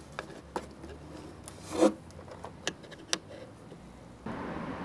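Hands handling wiring and plug connectors inside an RC jet's fuselage: a handful of sharp clicks and rubbing, the loudest a rub and click about two seconds in. A steady hiss comes in shortly before the end.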